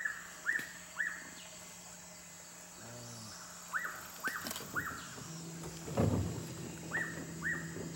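Forest birds calling in short rising-and-falling chirps, three at a time about half a second apart, repeated three times, over a steady high-pitched insect drone. A brief low noise comes about six seconds in.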